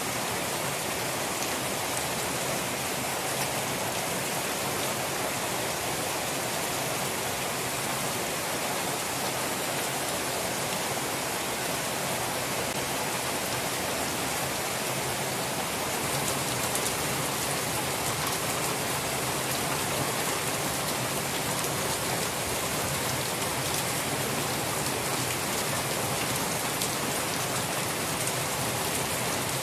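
Heavy typhoon rain pouring steadily onto leaves and floodwater, a dense, even hiss that swells slightly about halfway through.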